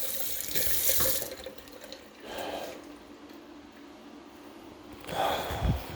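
Water running from a faucet into a sink, cut off a little over a second in. The water flowing shows the supply pipes have not frozen. A few soft knocks follow.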